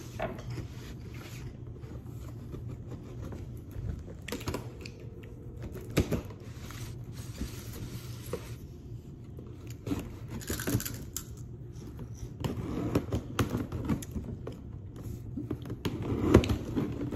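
Cardboard product box being handled and opened: irregular scraping and rustling of the packaging, with scattered knocks and taps, the loudest near the end.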